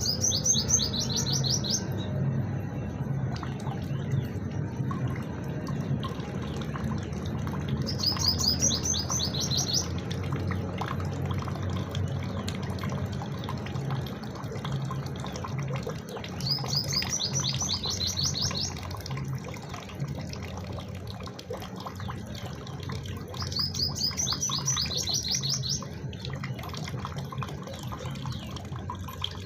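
A bird singing a short, rapid trill of high notes four times, one phrase about every eight seconds, over a steady low hum.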